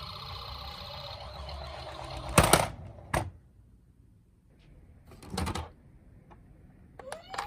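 Plastic toy cars rattling and clattering: a rolling rattle, a loud clack about two and a half seconds in, a sharp click, then another short rattle. Near the end a toy ambulance's electronic siren starts up.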